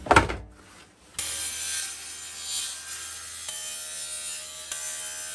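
Two loud knocks at the start, then, about a second in, a table saw running and cutting a piece of hardwood, a steady noise with a high ringing tone.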